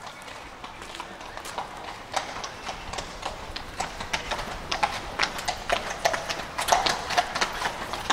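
Horses' hooves clip-clopping in an uneven rhythm, growing steadily louder as they approach.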